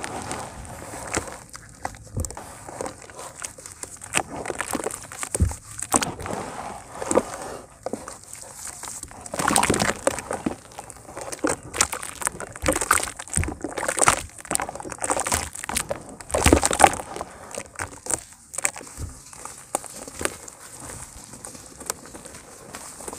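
Hands squeezing and squishing wet cement paste in a plastic tub: an irregular run of wet squelches and sloshes. Near the end, lumps of cement crumble gritty between the fingers.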